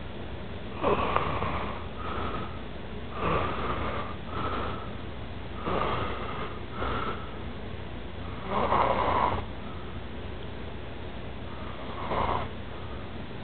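A young man snoring loudly in his sleep. Rasping snores come every two to three seconds, several followed about a second later by a shorter, softer one, with a longer pause before the last.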